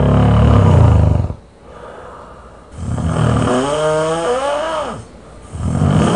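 A person snoring loudly: three heavy snores about three seconds apart, the middle one drawing out into a long wavering pitched groan that rises and falls.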